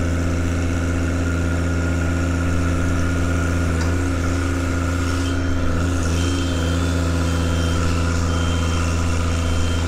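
Articulating boom lift's power unit running steadily as the platform is lowered. From about halfway through, its motion alarm sounds a series of short, evenly spaced high beeps.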